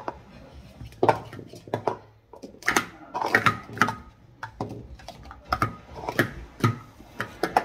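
Plastic Speed Stacks sport-stacking cups being rapidly stacked up and down on a StackMat: a quick, irregular run of hard plastic clacks as cups knock together and tap the mat, with some denser flurries.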